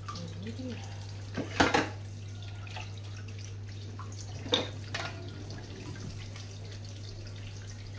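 Kitchen tap running steadily into a stainless steel sink while dishes are rinsed under it, with a few clinks of crockery: the loudest about a second and a half in, two smaller ones a little after the middle. A steady low hum sits under the water.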